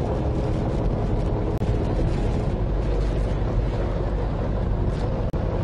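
Charter fishing boat's engine running with a steady hum, mixed with wind on the microphone and the wash of choppy water.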